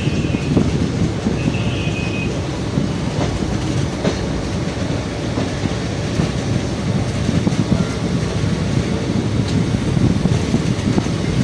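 Train running along the track, heard from on board: a steady rumble of wheels on rail with a few light clicks from the rail joints, and a faint brief high squeal about one and a half seconds in.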